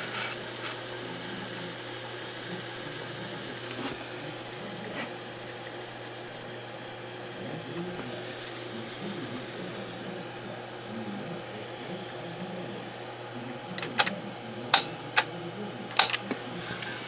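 Steady low mechanical hum of a JVC BR-S611 S-VHS VCR running with a tape loaded, followed near the end by a handful of sharp clicks.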